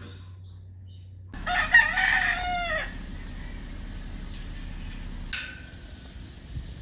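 A rooster crowing once, about a second and a half long, its pitch falling away at the end. A single short click follows a few seconds later.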